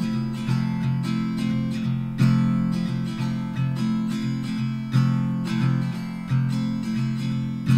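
Background music played on acoustic guitar, with new chords struck every second or two.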